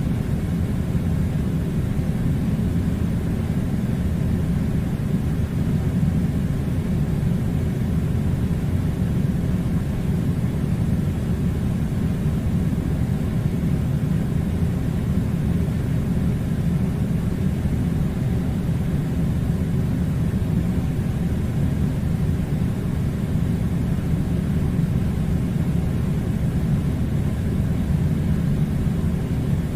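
Air conditioner running steadily: an even, low rumbling whoosh of blown air that does not change.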